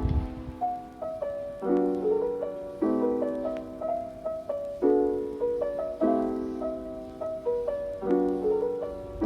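Background music: piano-led instrumental with notes and chords struck at a gentle, regular pace.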